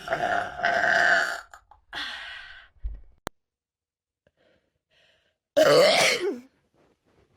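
A person burping loudly, three times: a long burp over the first second and a half, a shorter one about two seconds in, and another loud one about five and a half seconds in. A sharp click comes just after three seconds.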